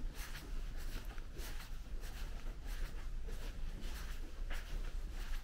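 Quiet market ambience: a steady low hum with faint, scattered rustles and taps.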